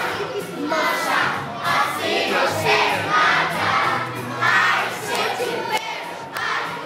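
A crowd of young children shouting and cheering together, many voices at once, with music underneath.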